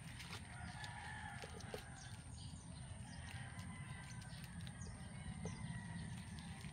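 Six-week-old kittens crunching dry kibble from plastic plates, a scatter of small clicks and crunches, over a low steady background rumble. A long drawn-out call from a distant bird carries in the background.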